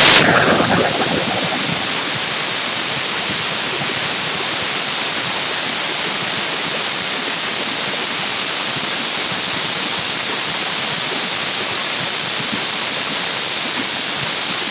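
Steady even hiss from a pressure cooker heating on a gas burner, building pressure toward its next whistle; louder in the first second, then settling to an even level.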